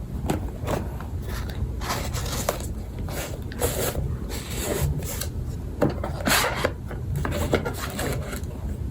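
Gift packaging being opened by hand: irregular rubbing and scraping of cardboard and paper, with scattered short sharper knocks.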